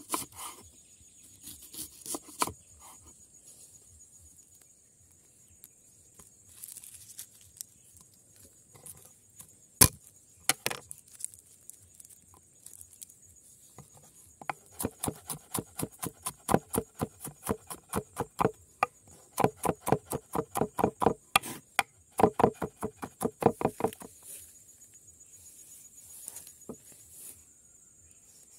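Broad kitchen knife chopping vegetables on a wooden cutting board: a few single cuts and one sharp knock, then a fast run of chops, about three or four a second, for some ten seconds. Insects trill steadily in the background.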